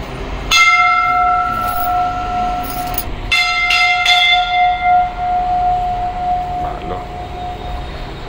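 Temple bell struck once, then again a few times in quick succession about three seconds later; each strike rings on in a long, clear tone that dies away about seven seconds in.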